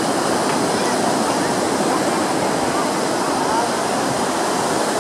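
Ocean surf washing onto a sandy beach, a steady rush of noise with no breaks.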